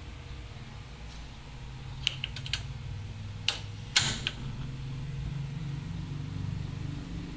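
Gas stove burner being lit: a few sharp igniter clicks as the knob is turned, from about two seconds in, then two louder clicks, the burner catching alight about four seconds in.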